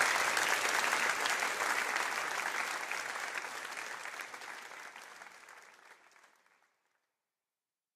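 A congregation applauding, a dense steady clapping that fades away over the second half and dies out about a second before the end.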